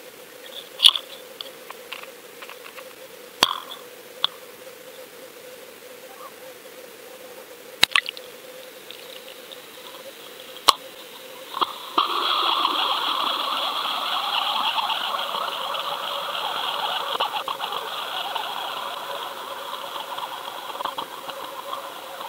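Sound picked up inside an underwater camera housing as it is lowered on a line: a few sharp knocks and clicks in the first half, then, from about halfway through, a steady hissing rush of water as the camera sinks.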